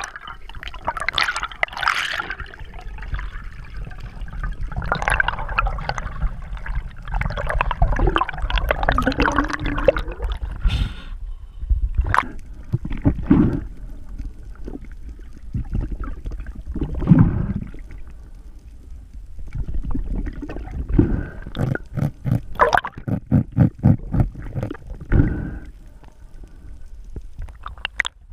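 Water gurgling and sloshing around an underwater camera housing over a steady low rumble, broken by irregular louder bursts of splashing and knocking.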